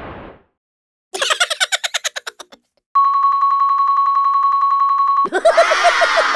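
Edited-in cartoon sound effects: a quick trilling rattle about a second in, then a steady electronic ringing tone held for about two seconds, cut straight into a warbling, wavering effect near the end.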